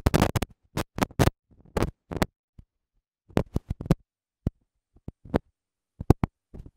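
Microphone handling noise: short bursts of scratching and rustling, as of cloth rubbing on a microphone, broken up by stretches of dead silence.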